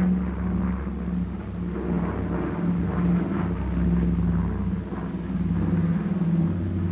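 Flying boat's piston engines droning steadily on the approach to a landing, a loud low hum that wavers slightly.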